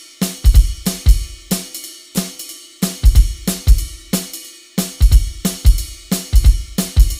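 Electronic drum kit played in a steady groove: kick drum, snare, hi-hat and cymbal hits.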